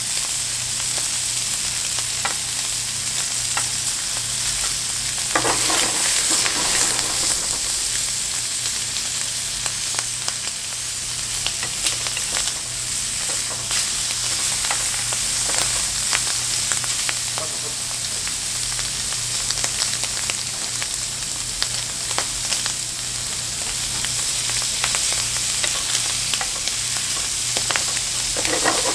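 Food sizzling in oil in a frying pan, with a steady hiss and frequent short clicks of a utensil stirring in the pan. The sizzle swells louder about five seconds in and again near the end.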